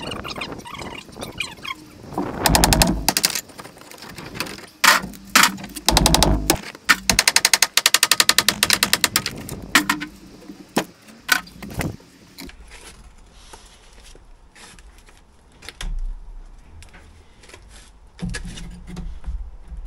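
Bricks being pulled off a brick wall and dropped into a steel wheelbarrow: heavy thuds and clattering, with a rapid rattling run about halfway through.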